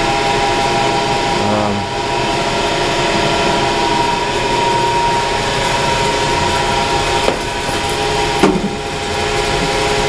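Steady, loud drone of running mechanical-room machinery, several steady hum tones over a broad rushing noise. Two short knocks sound about seven and eight and a half seconds in.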